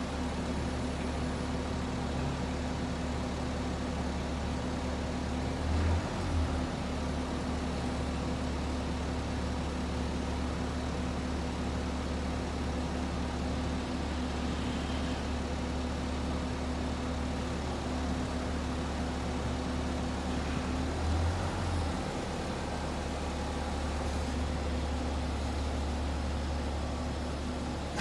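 BMW M550d's diesel engine running at a steady idle as the driverless car creeps under remote-controlled parking, with two brief swells about six seconds in and again around twenty-one seconds.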